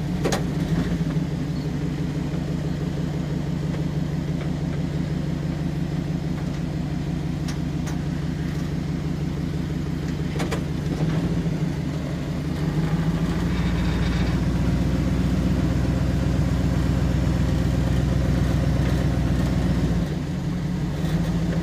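Dodge pickup truck's engine running at low speed as the truck crawls through soft beach sand in two-wheel drive, heard from inside the cab. The engine note changes about thirteen seconds in, and again near the end.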